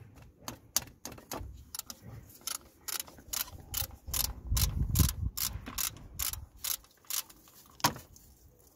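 Ratchet spanner clicking in short, uneven strokes as a 12 mm thermostat-housing bolt is undone, about two to three clicks a second.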